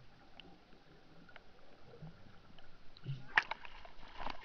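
Faint underwater ticks and bubbling, then about three seconds in a burst of water splashing and sloshing with a sharp knock as the camera comes up through the surface beside the surfacing freediver.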